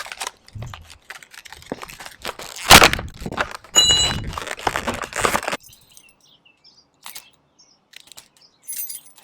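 Metal clanks, knocks and scraping as a locking hitch pin is pushed through a trailer hitch receiver and locked. There is a loud knock about two and a half seconds in, then a stretch of scraping with a brief metallic ring, followed by a few faint clicks.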